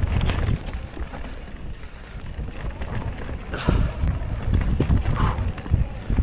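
Mountain bike ridden fast down a rough trail: wind buffeting the microphone, with irregular knocks and rattles from the bike over the ground.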